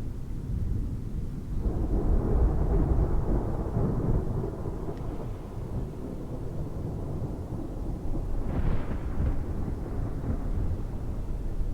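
Thunder rumbling in a storm, swelling about two seconds in and slowly fading, with a second, lighter swell near the end.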